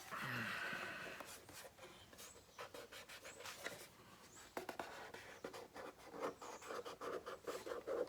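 Hands rubbing and scraping paper over a decal on a painted panel, pressing it down and working the transfer backing off. A longer hissing rub comes first, then a run of short scratchy strokes that grow quicker and more regular near the end.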